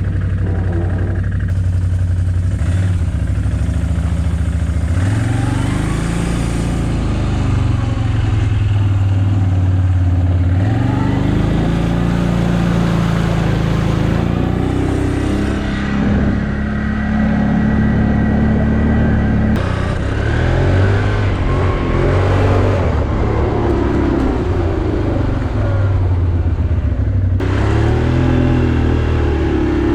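ATV engine running, its revs rising and falling again and again.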